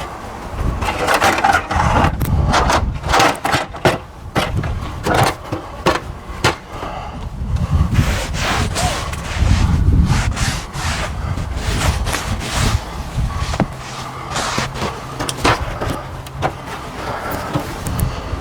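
Scrubbing and rubbing against the wood of a framed window opening as paint thinner is wiped on as primer, with many irregular knocks and clicks.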